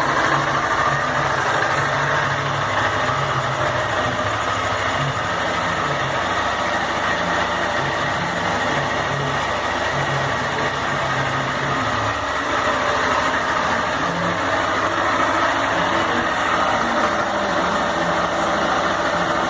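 Honda CG 160 Fan's single-cylinder four-stroke engine idling steadily, the engine noise that the owner finds unusual after break-in at about 3,700 km.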